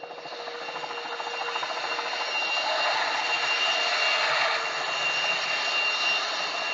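A music recording played as a 16-bit quantized audio sample. It starts just before and swells up over the first two seconds into a dense, busy texture with a thin steady high tone running through it.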